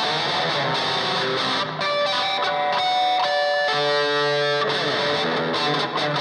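Solid-body electric guitar being played: quick runs of notes, one chord held for about a second near the middle, then a quick slide down in pitch.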